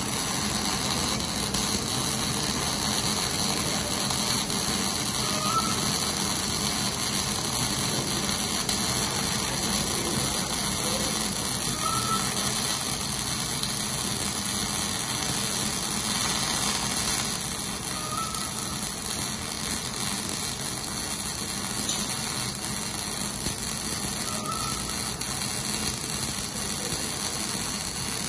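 Electric arc welding: the welding arc running steadily, with a faint short chirp repeating about every six seconds.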